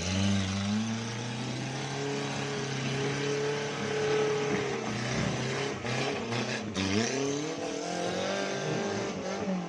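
Suzuki Jimny engine revving hard under load, over a steady hiss. The pitch climbs at the start and holds high, dips about five seconds in, rises again around seven seconds, then falls near the end.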